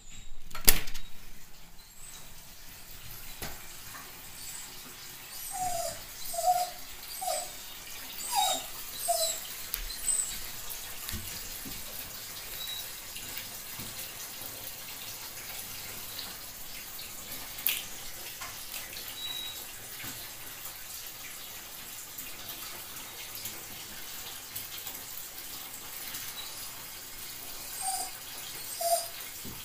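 Rough collie whining in short, high cries, a run of about six some six to nine seconds in and two more near the end, a sign of distress at being bathed. A bathtub tap runs steadily underneath, and there is a sharp knock just under a second in.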